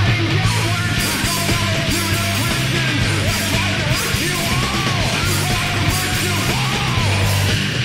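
Loud, dense noise rock recording played by a full band, with a heavy low end and steady drumming.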